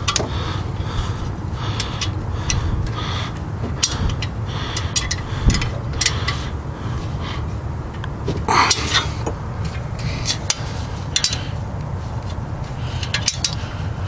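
Wrench clinking and scraping against exhaust header bolts as loose bolts are tightened, in scattered sharp metallic clicks over a steady low rumble.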